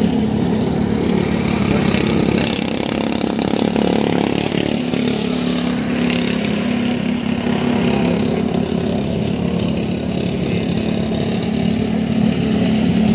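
Engines of several racing lawn mowers running steadily at racing speed as they lap the track.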